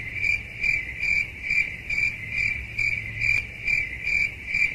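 Cricket chirping sound effect: an even train of short, high chirps, about two and a half a second. It is the comedy cue for awkward silence.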